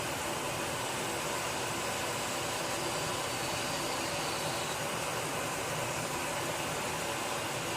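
Steady hiss of gas escaping, an even rushing sound that holds unchanged throughout.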